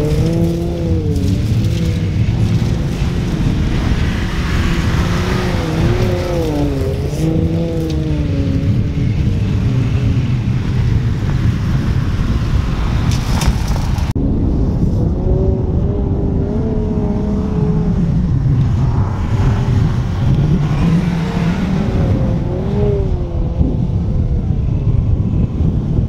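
Porsche Macan S's turbocharged V6 engine revving up and down under a steady low rumble, as the SUV spins its wheels through loose beach sand. The sound changes abruptly about 14 seconds in.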